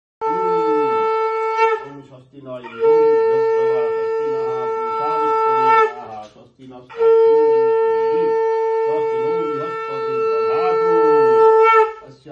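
Conch shell (shankha) blown three times in held, steady notes: a short first blast, then two long ones of about three and five seconds.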